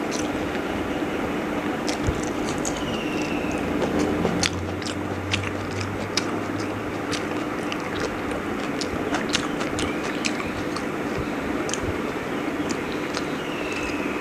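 Close-up chewing and mouth sounds of a person eating chicken biryani: irregular wet clicks and smacks over a steady background hiss and low hum.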